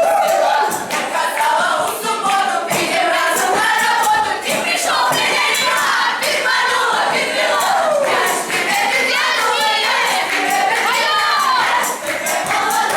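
A group of many young voices singing together at once, loud and unbroken throughout.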